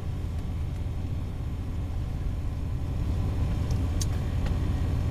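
Steady low engine rumble, with a few faint clicks about four seconds in.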